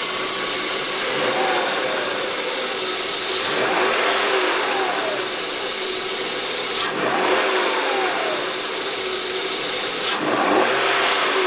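Car engine idling and being revved repeatedly, each blip a quick rise in pitch that falls back to idle, about three to four times. This is the engine's baseline sound with the HHO hydrogen cell not switched on.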